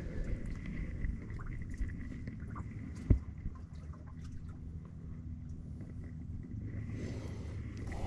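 Light clicks and knocks from handling a weathered wooden companionway door, with one sharp knock about three seconds in, over a low steady rumble.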